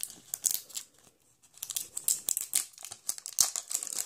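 Thin plastic wrapper on a toy capsule crinkling as it is torn and peeled off by hand, in irregular crackles with a short lull about a second in.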